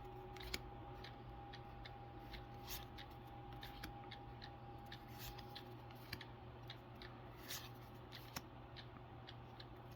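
Pokémon trading cards being handled and flipped through in the hand: a run of faint, quick clicks and slides of card against card.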